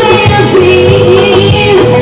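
Loud live band music with a woman singing lead into a microphone.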